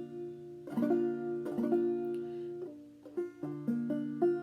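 Five-string banjo in fDGCD tuning, chords brushed a few times each, changing to a different chord about three seconds in: the one chord (F) and the four chord (B-flat) of the key of F.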